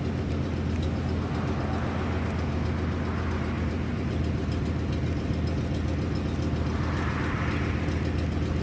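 Ford 7.5 L 460 big-block V8 running steadily with a leaking exhaust.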